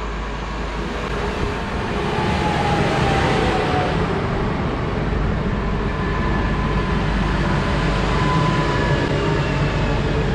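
Newag Impuls 36WEh electric multiple unit pulling away along the platform: a steady rumble of wheels on rail, with a faint electric whine that shifts in pitch.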